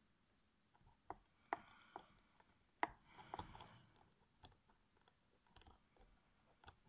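Faint, scattered metallic clicks of a precision Torx screwdriver bit turning a screw in a 2.5-inch hard drive's metal casing, with a short scraping rustle about three seconds in.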